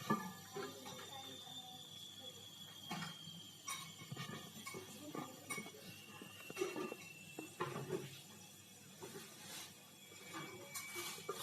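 Scattered light clinks and knocks of metal and glass, with a faint high steady tone that drifts slightly lower over the first few seconds.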